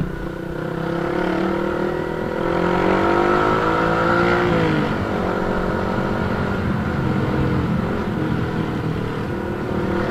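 Motorcycle engine accelerating, its pitch rising for a few seconds, dropping sharply about four and a half seconds in, then climbing slowly again, over a steady low wind rumble on the microphone.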